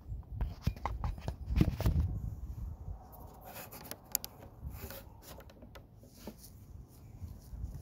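Close handling noise: rubbing and bumps as the camera is handled, loudest a second and a half to two seconds in, then a few light clicks and rustles as a hand moves on the MP5.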